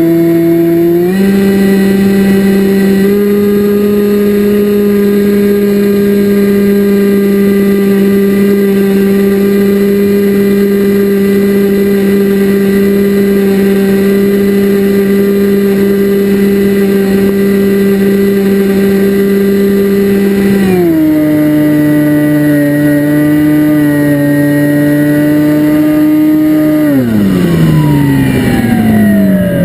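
Electric motor and propeller of a radio-controlled FPV aircraft, a loud steady whine held at constant throttle. About 21 seconds in the pitch steps down a little, and near the end it slides steadily lower as the throttle is pulled back.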